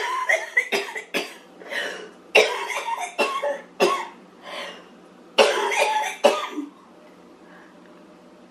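A woman living with cystic fibrosis in a coughing fit, coughing again and again into her elbow, the coughs stopping about seven seconds in.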